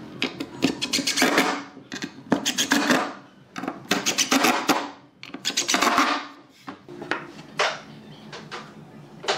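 Makita cordless impact driver driving wood screws into a pine board: four short bursts of rapid hammering, one per screw. Near the end, a few single knocks of wooden parts being fitted together.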